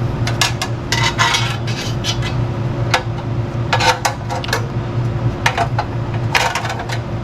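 Clinks and knocks as the cover over a Honda Gold Wing motorcycle's muffler is handled and fitted back into place, in several short bunches, over a steady low hum.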